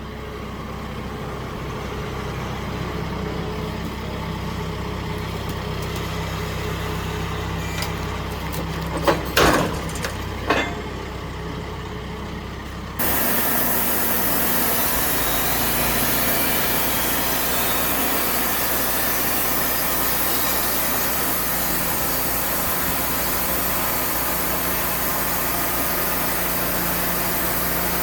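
An engine idling steadily, with a few sharp knocks and clanks about nine to ten seconds in. About halfway through it cuts suddenly to a louder, steady, hissing machine noise that runs on.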